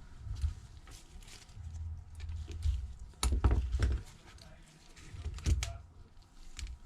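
Handling noise from laying thin adhesive tape along a phone's frame: scattered small clicks and taps over a low rumble of hands on the bench, with the loudest clicks about three and a half and five and a half seconds in.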